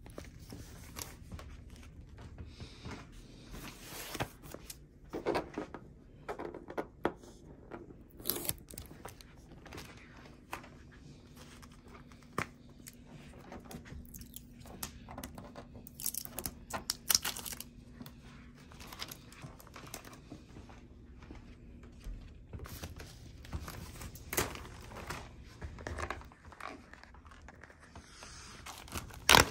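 Packing material being handled and torn: scattered rustling, crinkling and light clicks, with one sharp loud noise near the end.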